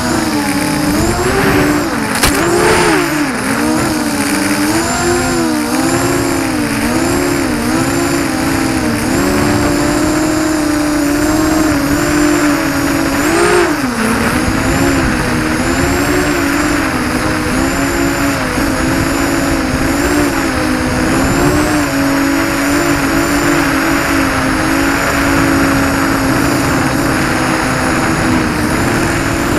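ZMR-250 FPV quadcopter's brushless motors and propellers whining, heard from on board. The pitch keeps rising and falling as the throttle changes, with deeper swoops about two seconds in and again near the middle.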